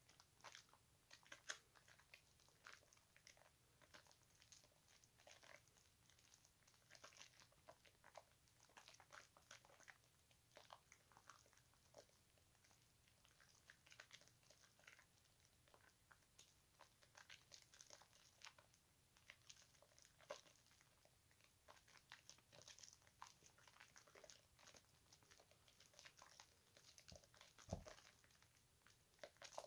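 Hands squeezing and kneading thick bar-soap lather in a bowl of soapy water: faint, irregular wet squelching and crackling of the foam. There is one dull knock near the end.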